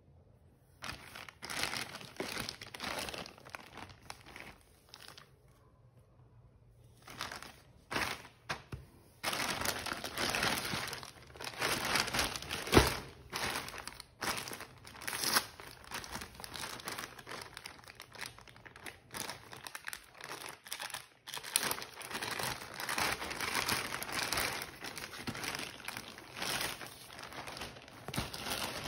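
Plastic courier mailer bag crinkling and rustling in the hands as it is handled and torn open, in irregular bursts with a short quieter pause, and one sudden sharp sound about halfway through.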